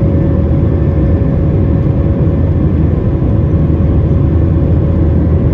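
Jet airliner cabin noise heard from a window seat over the wing: the turbofan engines and rushing air make a loud, steady low rumble with a steady hum tone above it as the plane climbs.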